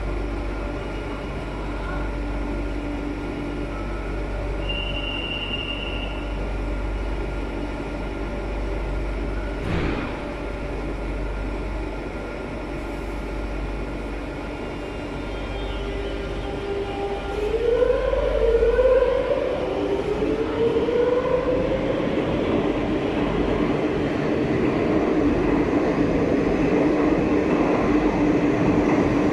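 Madrid Metro Serie 8400 train standing at the platform with its equipment humming steadily, a short beep about five seconds in and a single knock near ten seconds. From about seventeen seconds in it pulls away: a whine rising in pitch as it accelerates, with the running noise of the cars growing louder.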